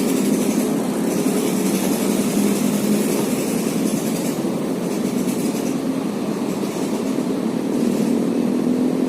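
An engine running steadily at an even speed, a low hum that holds the same pitch, with a hiss above it.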